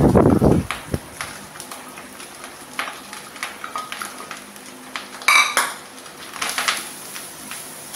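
Wooden spatula scraping and tapping shredded pumpkin off a ceramic plate into a wok, with light clatter and clinks. About five seconds in comes one sharp, ringing clink of crockery, and near the end the spatula clatters in the wok as stirring starts.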